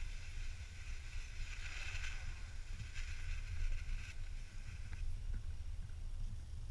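Cross-country skis swishing and scraping over a snow track, with a few short clicks and a steady low rumble of wind on the camera microphone.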